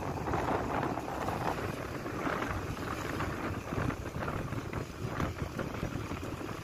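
Wind buffeting the microphone over the road noise of a moving vehicle, a rough, uneven rushing sound.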